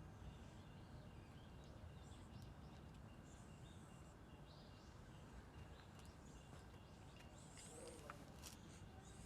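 Brown tabby cat purring steadily while being stroked, a low continuous rumble, with faint bird chirps high above it.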